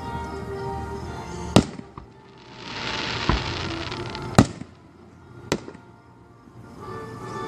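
Aerial fireworks bursting: a sharp boom about one and a half seconds in, a hissing crackle for a second or so after it, then two more booms about four and a half and five and a half seconds in.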